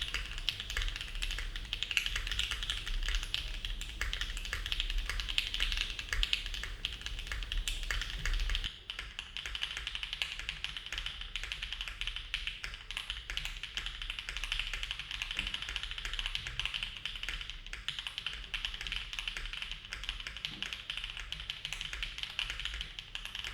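Continuous fast typing on a Neo70 mechanical keyboard fitted with HMX Macchiato switches in gasket mount: a dense stream of key clacks.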